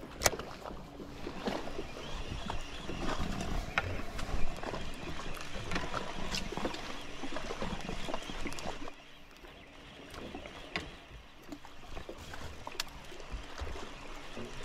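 Water slapping and lapping against the hull of a small fishing boat, with scattered light clicks and knocks and two sharper knocks, one right at the start and one about four and a half seconds in. It gets quieter after about nine seconds.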